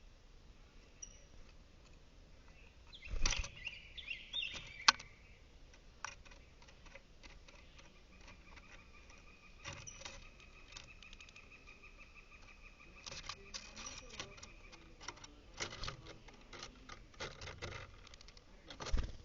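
Small birds moving close to the microphone: scattered taps, clicks and wing flutters, with a sharp knock about three seconds in and another near the end. A faint steady tone sounds for several seconds in the middle.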